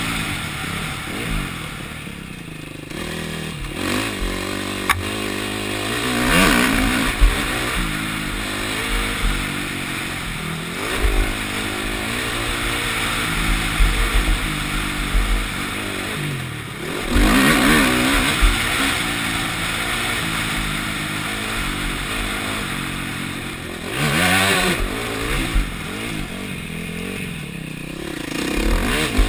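Single-cylinder four-stroke KTM motocross bike engine run hard on a dirt track, revving up and dropping back again and again with the gear changes and throttle. Wind rushes over the microphone in places, and there are a few sharp knocks over bumps.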